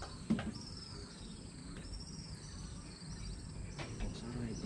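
An insect calling: a high, buzzy note that slides downward, repeated about once a second. A single sharp knock sounds a moment in.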